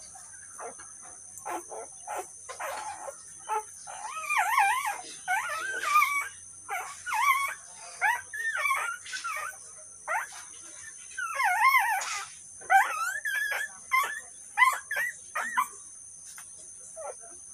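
Newborn puppies whimpering and squeaking while they nurse: many short, high-pitched, wavering cries, most of them from about four seconds in, after a few short clicks in the first seconds.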